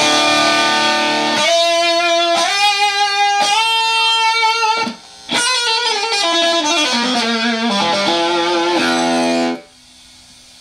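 Electric guitar played through a c.1977 Electro-Harmonix Muff Fuzz, a 1458 op-amp fuzz pedal, in a test that shows the pedal working: sustained fuzzy single notes, a short break about five seconds in, then a phrase stepping downward. The playing stops suddenly near the end, leaving a faint amp hum.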